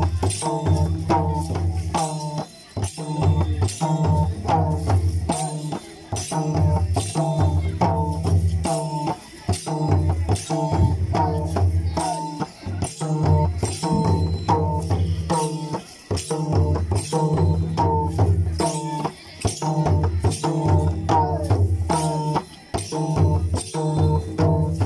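Tharu Sakhiya folk dance music: hand drums keep a fast, steady beat under group singing, with metallic jingling on the beats.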